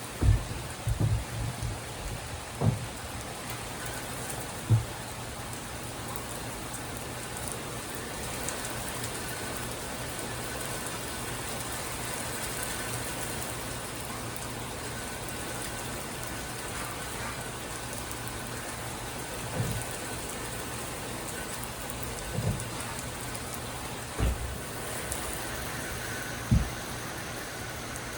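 Steady rain during a severe thunderstorm, with short low thumps: several in the first few seconds and a few more near the end.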